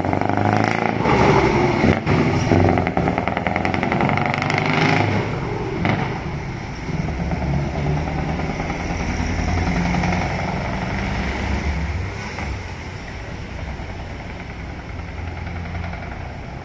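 Scania 164L V8 truck with an open exhaust pipe driving away, its exhaust loud at first and then fading steadily as it gets farther off.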